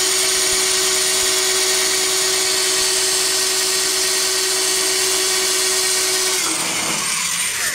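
Handheld electric drill running steadily as it drills the head off a rivet in aircraft skin, with a steady whine; the drill stops near the end and spins down.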